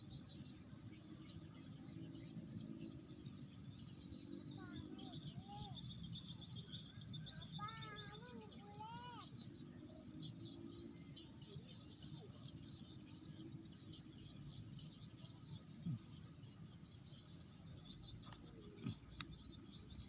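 Steady chorus of insects chirping rapidly, crickets, around a rice paddy. A bird calls a few short arched whistled notes about five seconds in and again around eight to nine seconds.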